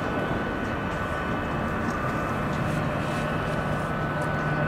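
Boeing C-17 Globemaster III's four turbofan engines running at taxi power: a steady jet whine on several held tones over a low rumble.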